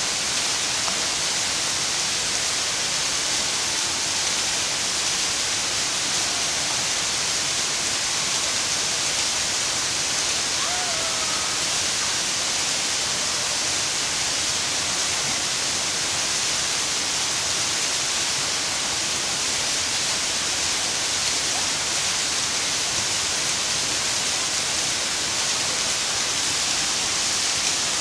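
Waterfall rushing, a steady dense hiss of falling water.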